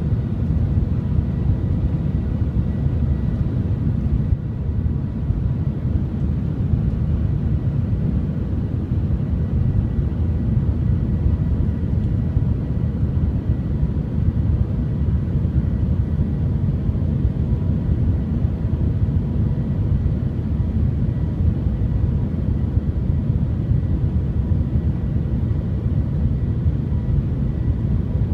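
Shanghai Transrapid maglev train in motion, heard from inside the passenger cabin: a steady low rumble with a faint constant high hum above it.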